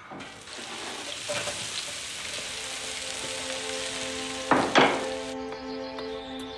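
Vegetables sizzling as they are tipped into a hot copper pot, with two sharp knocks about four and a half seconds in. The sizzle cuts off suddenly about five seconds in, while soft held music chords carry on.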